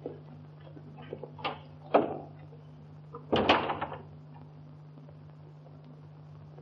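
A wooden door being handled and shut: a few small latch clicks, then a sharp knock about two seconds in as it closes. About a second later comes a short rattling clatter. A steady low hum from the old optical soundtrack runs underneath.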